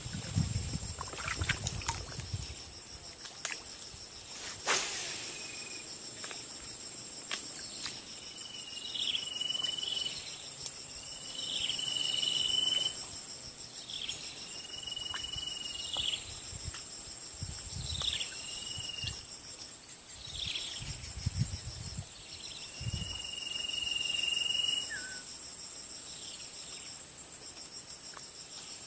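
Insects chirring steadily in high, even bands. Through the middle a bird repeats a short whistled call about seven times, each note dipping quickly and then holding level. A single sharp click comes about five seconds in, and a few soft low thumps come later.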